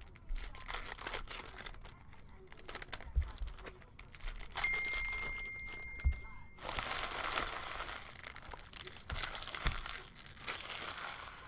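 Foil trading-card pack wrapper being torn open and crinkled in the hands, with cards handled, the crinkling heaviest in the second half. A thin steady high tone sounds for about two seconds near the middle, and there are a few soft knocks.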